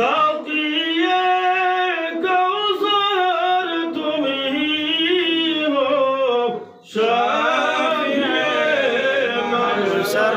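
A voice singing a devotional durood, the melodic salutation on the Prophet, with a short break about seven seconds in before the chant resumes.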